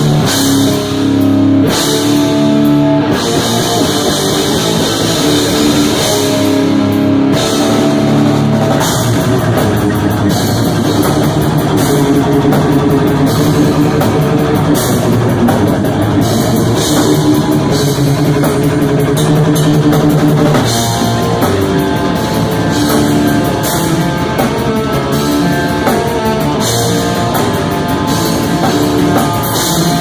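Live metal band playing loud: distorted electric guitar, bass guitar and a pounding drum kit, without a break.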